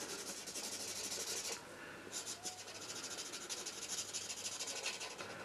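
Winsor & Newton Pro alcohol marker's chisel nib rubbing back and forth on paper while colouring in a swatch: a steady scratchy hiss of quick strokes, with a brief pause about two seconds in.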